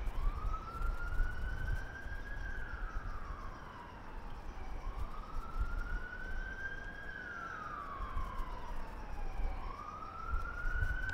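Emergency-vehicle siren sounding a slow wail, its pitch rising and falling twice over about five seconds each time and starting to rise a third time, over a low background rumble.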